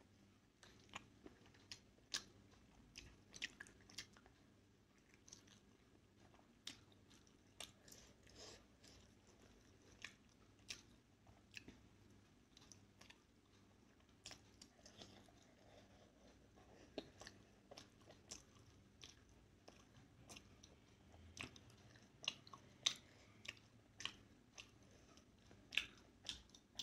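Faint, close-miked chewing of a soft steamed momo dipped in chili chutney: irregular wet mouth clicks and smacks, a few louder ones near the end.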